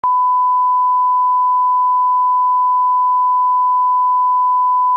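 Steady electronic test tone: a single loud, pure beep held unbroken at one pitch.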